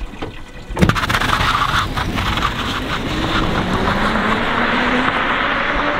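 Tesla-powered 1960s Mini accelerating hard from a standstill: a sudden rush of tyre and road noise about a second in, then a steady rush with a faint rising whine as it speeds away.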